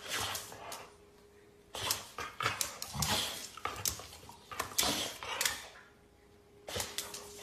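A dog snapping and huffing at a toothbrush held to its muzzle: irregular clusters of short clicks and breathy bursts, four groups with brief silent gaps between them.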